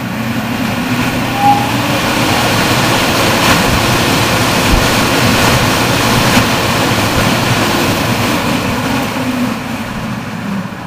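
Rosenberg GKHM 280 EC fan running at full speed with a steady rush of air and a faint low hum. Its soft start brings the level up over the first couple of seconds, and the level eases a little near the end.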